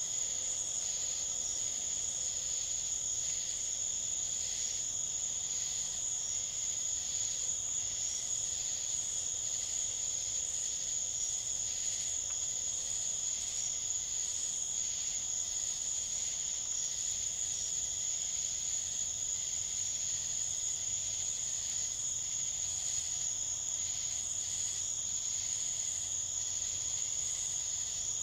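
A steady chorus of night insects: an unbroken high-pitched trill with a fainter, lower second band and a faint pulsing running through it.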